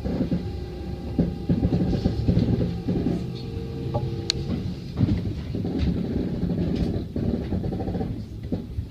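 Kintetsu Ikoma Line electric train running, heard from inside the car: wheels rumbling and knocking on the track, with a short steady tone near the middle and one sharp click.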